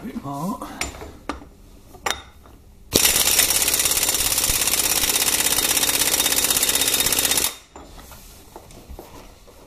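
Impact wrench hammering on the nut on the transmission mainshaft at the centre of a Harley-Davidson belt-drive clutch: a steady, rapid rattle that starts about three seconds in and lasts about four and a half seconds. A few clicks and knocks from handling the tool come before it.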